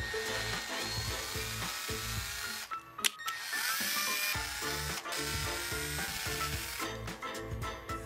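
Cordless drill boring through a 3D-printed plastic bracket, in a few runs with a short pause and a click about three seconds in, stopping near the end.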